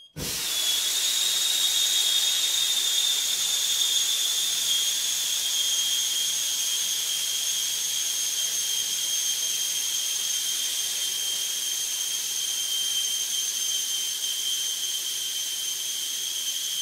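IG55 (argon-nitrogen) inert-gas fire-suppression system discharging through a silencer. The gas bursts in suddenly and keeps up a loud, steady hiss with a high whistle that slowly sinks in pitch, measured at about 126 dB.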